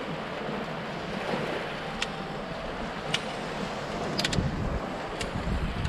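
Sea surf washing against a rocky shoreline, with wind on the microphone. A few light clicks about a second apart fall in the second half.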